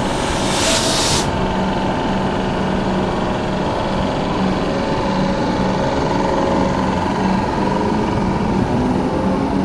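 Comeng electric suburban train starting off and pulling away from the platform. Its motors and equipment give a steady hum with held whining tones, and a short hiss comes about half a second in.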